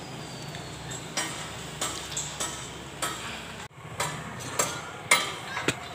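Outdoor ambience with a low steady hum and a string of short, sharp clicks and knocks, the loudest about five seconds in.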